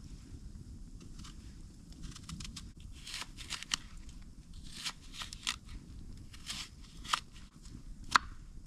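Knife cutting an apple on a cutting board: a scatter of crisp crunching cuts and sharp taps, about half a dozen, the loudest near the end, over a low steady rumble.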